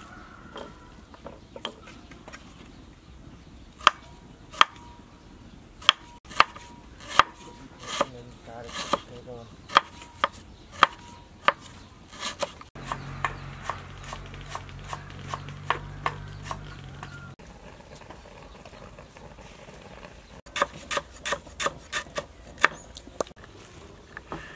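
Knife chopping on a wooden cutting board: spaced sharp strikes, about one a second at first, then a quicker run of chops near the end. A low steady hum is heard for a few seconds in the middle.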